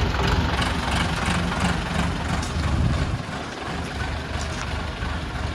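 A vehicle's engine running steadily with a heavy low rumble.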